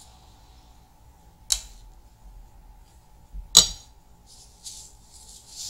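Kitchen knife and utensil sounds while slicing raw potato over a metal baking pan: a sharp click about one and a half seconds in, a louder clack as the knife is set down on a ceramic plate near the middle, then a few brief scraping rustles.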